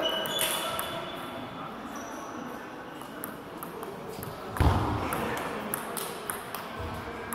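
Table tennis rally: the ball clicking off rackets and table in quick, irregular succession. A heavier thump about four and a half seconds in is the loudest sound.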